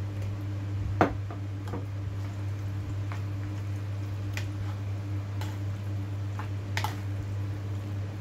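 Dressed black fungus being mixed in a plastic bowl, stirred with a spoon and then squeezed by hand. Scattered sharp clicks and knocks of utensil, bottle and bowl sound through it, the loudest about a second in. A steady low hum runs underneath.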